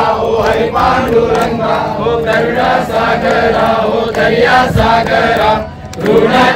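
Many voices chanting together in unison, a devotional chant. It dips briefly near the end, then comes back louder.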